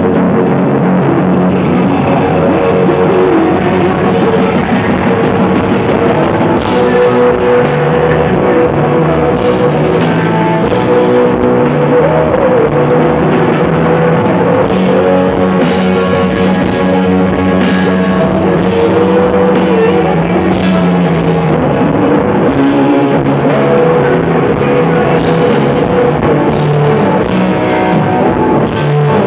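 Live rock band playing loudly: electric guitar through amplifiers with drums, long held notes and repeated cymbal crashes.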